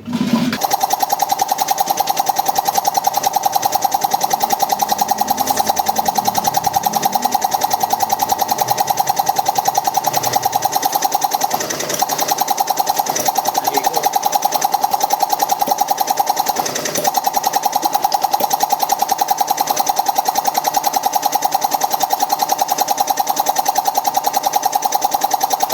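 Zacchi air compressor's motor and piston pump running, with the reed-valve head freshly reassembled and no hoses attached: a steady rapid pulsing of piston strokes under a constant whine. It starts abruptly at the beginning.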